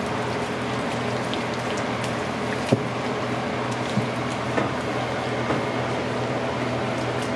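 Gloved hands rubbing marinade into a raw pork shoulder on a metal sheet pan, giving a few soft wet squelches and taps, the sharpest about three seconds in. Under them is a steady hum of kitchen machinery.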